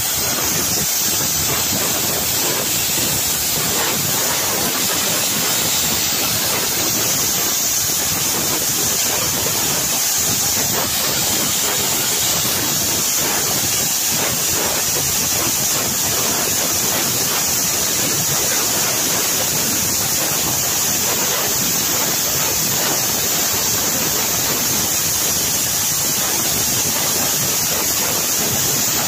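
Steam locomotives 70000 Britannia and 46100 Royal Scot standing with steam escaping in a loud, steady hiss. There is no exhaust beat, so the engines are not working.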